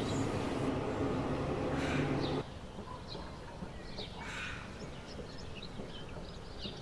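Faint background with a low steady hum that cuts off abruptly after about two and a half seconds, then quiet room tone with faint, scattered bird chirps.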